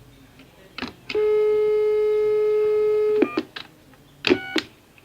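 Landline telephone: a click, then a steady dial tone for about two seconds, cut off by short keypad beeps as a number is dialled, two quick ones and then two more a second later.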